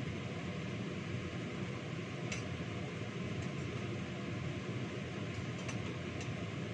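A steady whooshing background noise, like a running kitchen fan, with a few light clicks of kitchenware against metal bowls from about two seconds in.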